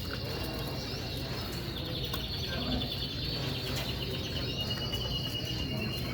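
Canaries singing: a fast, even trill from about two seconds in, then a held high note, over a steady low hum.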